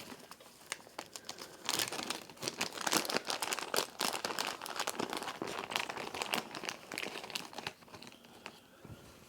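Crinkling and rustling of a plastic treat bag being handled, a dense run of crackles for several seconds that thins out near the end.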